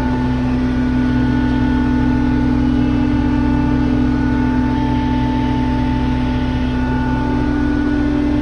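Tractor engine running at a steady speed, with a constant whine over its low hum.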